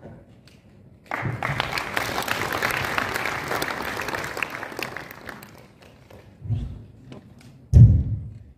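Audience applauding in a large hall for about four seconds, fading out, followed by two dull thumps near the end, the second one the loudest.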